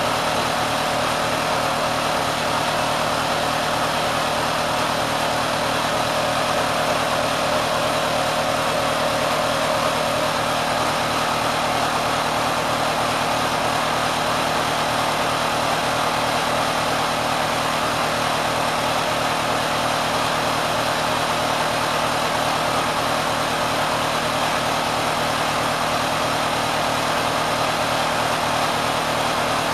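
Kenmore sewing machine driven by a 3/4 hp motor, running steadily at high speed far beyond its factory RPM: a continuous rapid mechanical clatter over a steady motor hum, with the top of the machine running hot.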